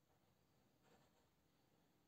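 Near silence: room tone, with one faint, brief scratch about a second in.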